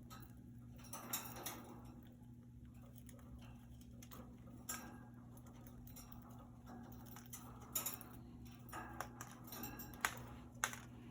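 Budgies moving about in a wire cage: a scattering of light clicks and taps, a few sharper ones, over a steady low hum.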